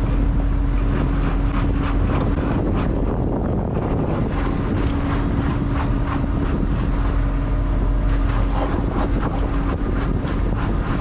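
Fishing boat's engine running steadily with a constant low hum, and wind buffeting the microphone.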